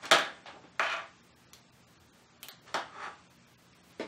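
A handful of short clicks and clatters of small hard objects being handled on a workbench, the first, just after the start, the loudest.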